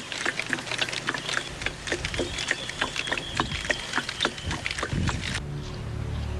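Filtered water dripping and trickling from a hose into a plastic jerrycan: a fast, irregular run of small splashy ticks that stops about five seconds in, where background music begins.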